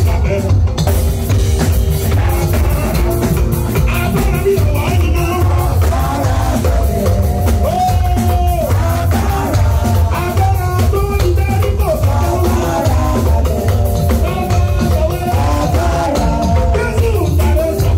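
Live gospel music from a white-robed church choir singing into microphones over a band with a drum kit and heavy bass, loud and unbroken.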